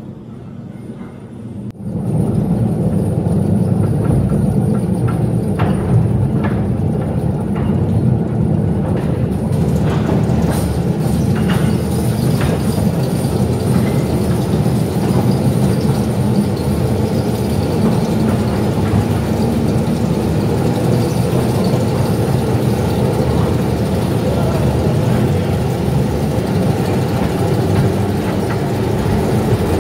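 1948 electric mine locomotive riding along the rails through a mine tunnel, heard from on board: a loud, steady rumble of the locomotive and its wheels on the track. It starts abruptly about two seconds in, with a few clanks and clicks over the following ten seconds.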